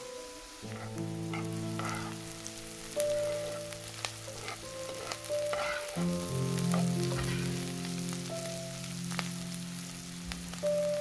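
Diced onion and peppers sizzling as they fry in a pan, stirred with a metal spoon that scrapes and clicks against the pan now and then. Soft background music with held notes plays underneath.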